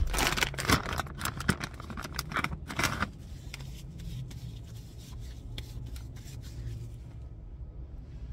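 Crinkling and rustling of a paper wipe being unwrapped and rubbed between the hands, with sharp crackles for about three seconds. After that, only a low steady hum remains inside the car, with a couple of faint clicks.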